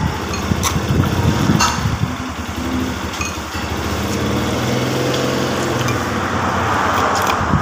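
A small engine running steadily, with a slight shift in its pitch partway through.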